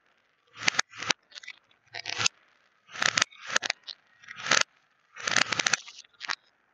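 Small beads clattering and rattling against plastic stacking cups and a tray in irregular bursts, several of them swelling up and cutting off sharply, as impacts do when played in reverse.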